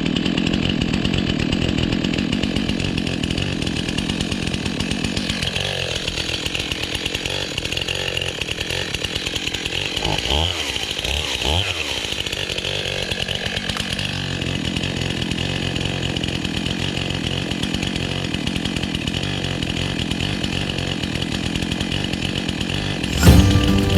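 Chainsaw running steadily at speed, its pitch sagging for several seconds in the middle and then picking up again, as when cutting wood.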